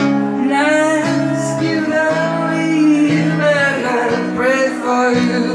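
A man singing a held, sliding melody over a strummed acoustic guitar.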